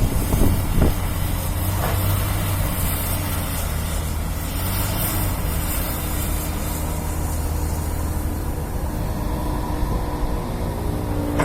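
Heavy diesel engine of an excavator running steadily at work. There are a couple of knocks in the first second, and a steady higher whine comes in near the end.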